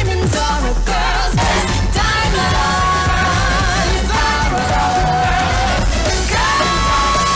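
Pop music with a steady beat and a high voice singing held notes with vibrato.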